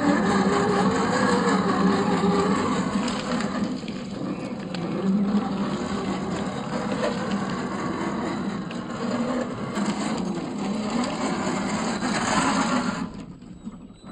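Electric motor and drivetrain of a 1/10 scale RC crawler running as it drives over rough ground, making a low, wavering whine over a steady rumble. The sound drops away near the end.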